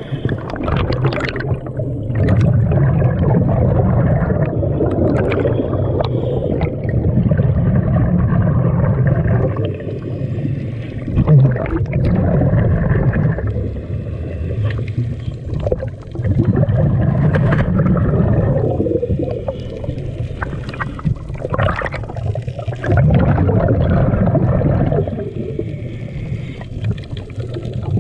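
Scuba diver breathing through a regulator underwater: each exhalation is a rumble of bubbles, about five of them some five seconds apart, with quieter inhalations between.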